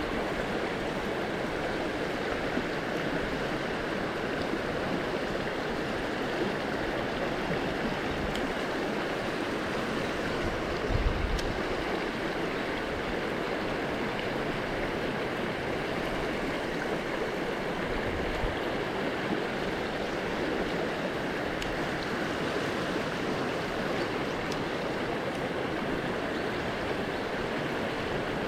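River water flowing steadily. A brief low thump, likely a bump on the microphone, comes about eleven seconds in.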